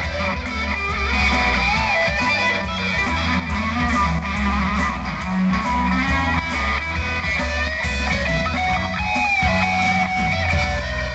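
Live band playing a song, with guitar and bass guitar prominent.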